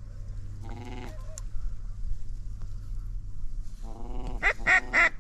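Swans calling as a flock flies over: a short nasal call about a second in, then more calls building into a run of loud, short, bleat-like notes over the last second or so.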